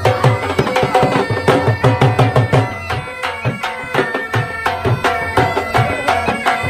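Music with a quick, steady drum beat under held melodic notes.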